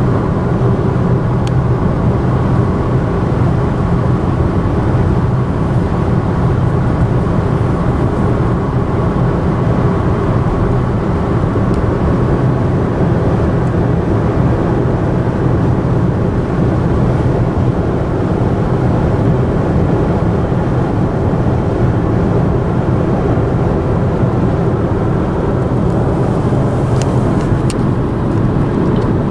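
Steady drone of a car travelling at constant speed, tyre and engine noise holding level with a low hum throughout, a few faint clicks near the start and near the end.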